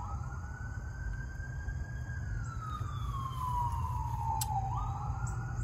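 Emergency vehicle siren wailing: its pitch climbs, then slides slowly down over a few seconds, and jumps back up again near the end. It sounds over a low steady rumble.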